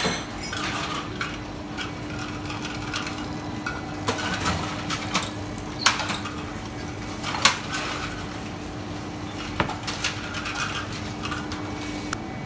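Glasses clinking and ice rattling as they are handled at a drinks counter, with scattered sharp clinks over a steady low hum that cuts off near the end.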